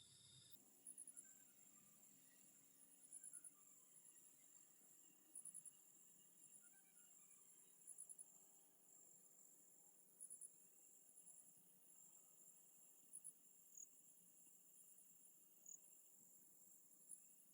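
Faint night insects chirping: short, very high-pitched pulsed chirps every one to three seconds over a steady high insect drone.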